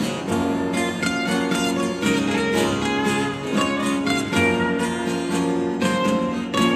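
Live rock band playing an instrumental passage, a plucked guitar lead picking out notes over sustained chords.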